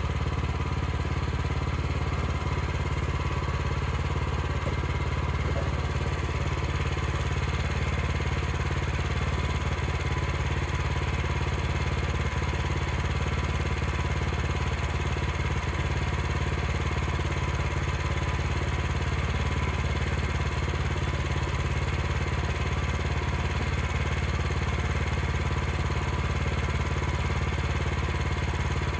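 The 9.5 horsepower Kohler gasoline engine of a Wood-Mizer LX25 band sawmill running steadily at an even pitch and level.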